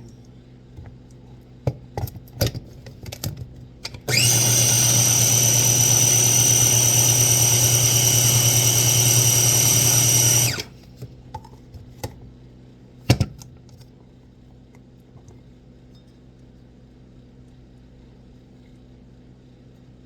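Electric kitchen appliance grinding peanuts and other nuts into peanut butter: the motor spins up with a rising whine, runs steadily for about six seconds and cuts off suddenly. Light clicks and knocks come before and after, with one sharp knock about thirteen seconds in.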